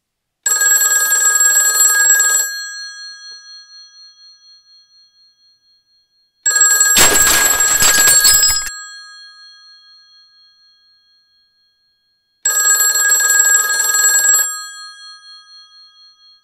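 Telephone bell ringing three times. Each ring lasts about two seconds, the rings start about six seconds apart, and the bell tone hangs and fades after each one. The middle ring is harsher, with a clattering noise over it.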